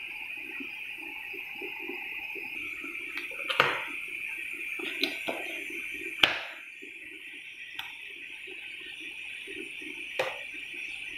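Sugar syrup boiling in a small nonstick pan, a steady bubbling hiss, with a few sharp clinks of a steel spoon, the loudest about three and a half and six seconds in.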